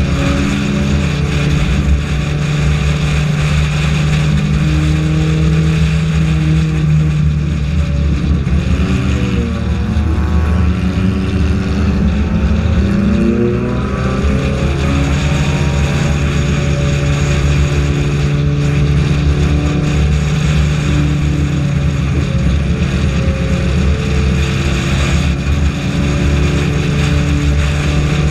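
Four-cylinder F4 race car engine running hard at steady high revs, heard from a camera mounted on the car with wind and road noise. Its pitch dips and climbs back up about a third of the way through.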